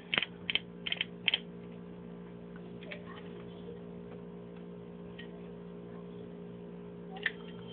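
Several light clicks and taps from handling in the first second and a half, then a steady low electrical hum with a couple of faint clicks near the end.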